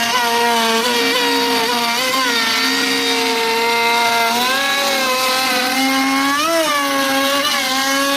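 CNC router spindle whining steadily while it cuts wood, its pitch dipping and recovering repeatedly as the cutter loads up in the wood.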